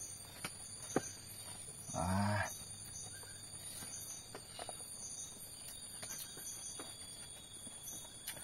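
Quiet eating by hand off a banana leaf: scattered soft clicks and leaf rustles, with a short hummed voice sound about two seconds in. A steady high-pitched drone runs underneath.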